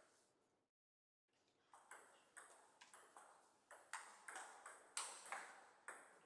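Table tennis rally: the ball clicking sharply off the rackets and bouncing on the table, a quick run of hits each trailing off in echo. The sound cuts out completely for about half a second near the start.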